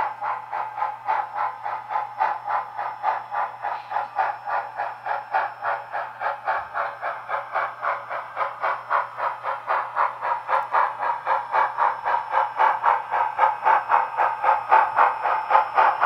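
Sound-equipped H0-scale model steam locomotive chuffing steadily at about four beats a second, growing louder near the end as it draws close, over a low steady hum.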